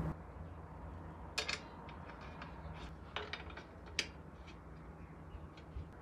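Metal bicycle brake parts being handled and fitted, giving a few light, scattered metallic clicks and taps, the sharpest about a second and a half, three and four seconds in.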